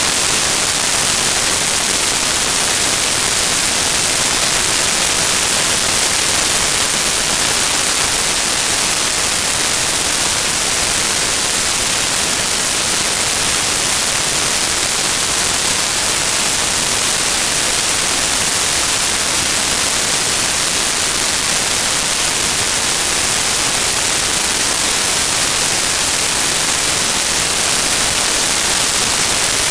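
Steady, loud, even hiss of air rushing over the microphone of an onboard camera mounted under the wing of an 800 mm Airfield T-28 Trojan electric RC plane in flight; no motor tone stands out from the hiss.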